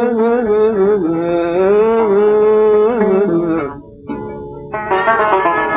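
Algerian chaabi music: a male voice holds one long, ornamented sung note over plucked-string accompaniment for about three and a half seconds, then drops away. About a second later the plucked strings, mandole and banjo, come back in.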